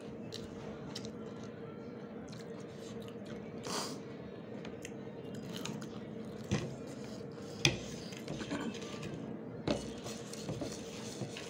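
Two people chewing and biting into crunchy fried pakoras, eaten by hand, over a steady background hum. A few sharp clicks of plates and bowls come in the second half; the loudest is about two-thirds of the way through.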